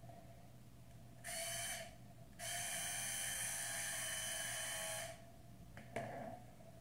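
Hot flat iron clamped on a lock of hair, hissing with steam: a short hiss, then a longer one of about two and a half seconds, each starting and stopping abruptly. A single sharp click about six seconds in.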